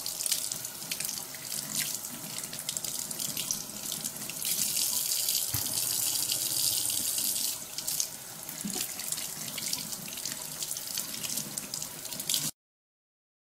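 Kitchen faucet running into a sink while hands rinse thin slices of beef short rib in the stream, washing out bone fragments, with water splashing on the meat and the basin. The splashing gets louder for a few seconds in the middle, and the sound cuts off abruptly about a second before the end.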